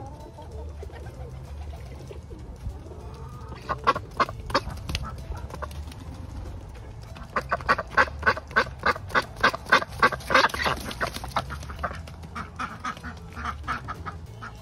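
Pekin duck quacking. A short burst of loud quacks comes about four seconds in, then a long rapid run of quacks, several a second, before it trails off into softer quacks near the end.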